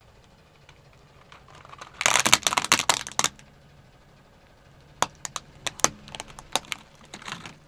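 Hard plastic toy vehicles, a toy auto-rickshaw and a toy truck, cracking and snapping as a car tyre crushes them. A dense run of loud cracks about two seconds in lasts about a second, then separate sharp snaps follow in the last few seconds.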